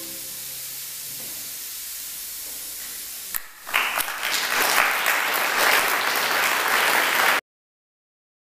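The last held notes of a chamber orchestra fade out, followed by a few seconds of hushed hall. About three and a half seconds in, after a click, the audience breaks into applause, which cuts off abruptly near the end.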